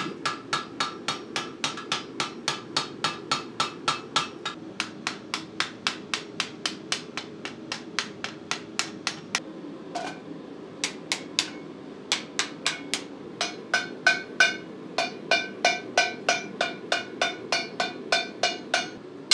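Blacksmith's hand hammer striking hot steel on an anvil horn, then over a steel cone mandrel, in a steady rhythm of about three to four ringing blows a second. A short pause comes about ten seconds in, after which the blows ring with a higher, brighter set of tones.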